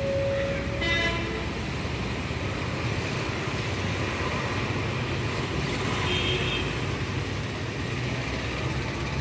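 Steady road-traffic rumble with a short vehicle-horn toot about a second in and another brief high tone around six seconds.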